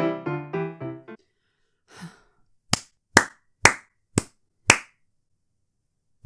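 Music stops about a second in. Then a person claps their hands five times, about two claps a second, with one more clap at the very end.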